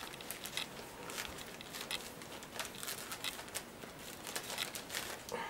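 Black plastic blind-box bag crinkling and rustling in irregular crackles as a comic book is tugged out of it; the bag is tight and the comic sticks.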